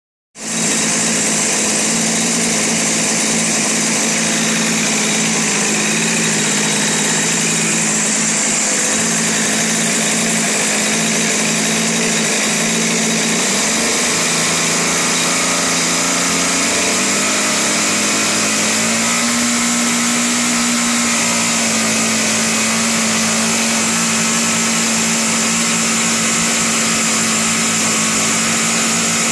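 Evolution 20GX two-stroke gasoline model-airplane engine running steadily on a break-in run, turning its propeller. Its pitch rises a little about halfway through, then holds at the higher speed.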